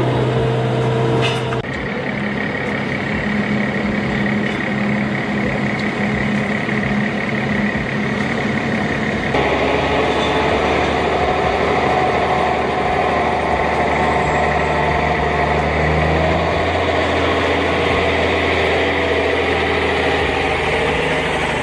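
Heavy diesel engines of construction machinery or trucks running steadily, the sound changing abruptly about a second and a half in and again about nine seconds in.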